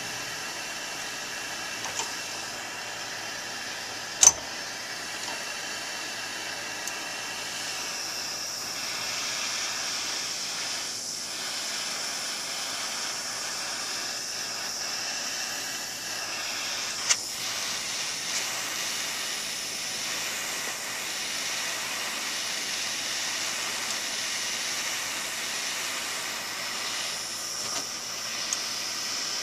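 Handheld gas torch burning with a steady hiss as its flame heats a motorcycle suspension linkage rocker to free its press-fit bearings. A few short sharp clicks break in, the loudest about four seconds in.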